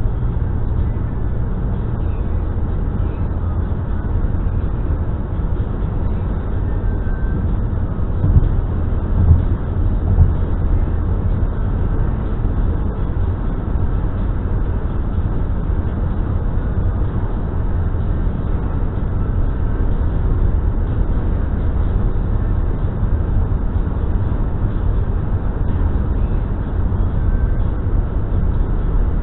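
Car driving along a paved road, heard from inside the cabin: a steady low rumble of tyres and engine, with a few brief louder thumps about eight to ten seconds in.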